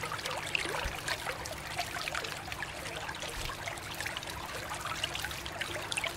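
Running water pouring over hands and a small toy car being washed, splashing and trickling steadily into a shallow basin of standing water.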